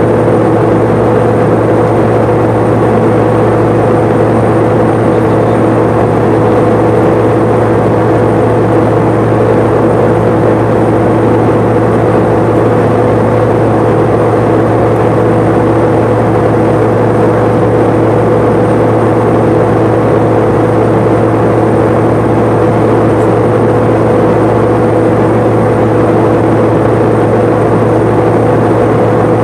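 Pilatus PC-12's single Pratt & Whitney PT6A turboprop and propeller, heard inside the cabin: a loud, steady drone with a few held tones over rushing noise.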